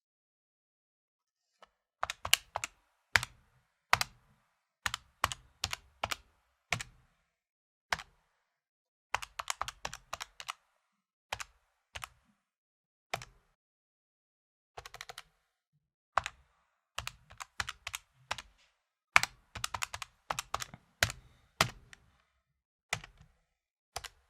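Fingers tapping the keys of an electronic calculator: irregular runs of sharp plastic key clicks, fast bursts broken by short pauses, as when entering numbers.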